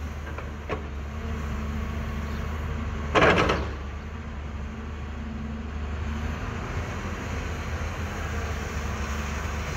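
Caterpillar hydraulic excavator's diesel engine running steadily with a low drone. About three seconds in, a short loud crunch as the bucket works the heap of earth.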